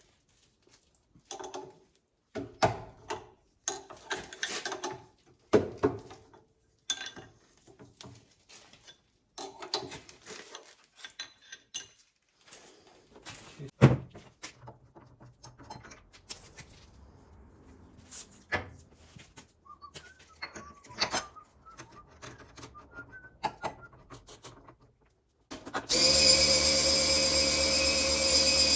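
Scattered metal clanks, clicks and knocks of tools and a workpiece being handled, with one sharp knock about halfway. Near the end a milling machine's motor switches on and runs steadily with a whine.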